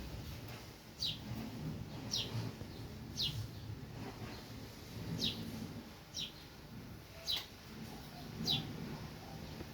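A small bird chirping over and over, short high falling chirps about once a second, which are the loudest sounds. Beneath them a cat purring, a low rumble that swells and fades with each breath.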